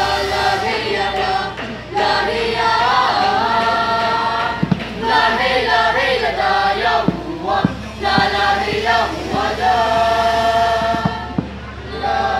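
A group of young men's and women's voices singing together without instruments, in held phrases a few seconds long with short breaks between them.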